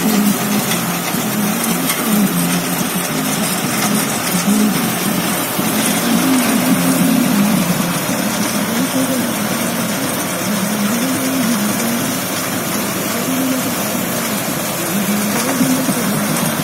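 Round straw baler picking up and baling paddy straw: its drive engine runs steadily, the pitch wavering up and down every second or two as the load changes, over a constant mechanical hiss and rattle.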